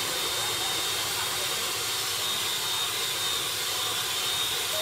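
Electric hand mixer running steadily, its twin beaters whipping egg whites into meringue in a stainless steel bowl: an even whirring hiss with a thin, high motor whine.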